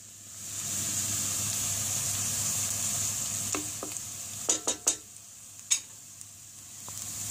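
Diced onion sizzling in hot oil in a frying pan, stirred with a spatula, with a few sharp clicks of the spatula against the pan around the middle. The onion is being sautéed to translucency and is just starting to turn golden.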